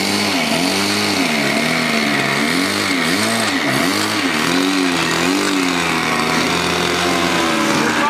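Small model aeroplane engine on a Seagull 40 model plane, being throttled up and down over and over on the ground before take-off. Its pitch dips and climbs again several times, then holds steadier near the end.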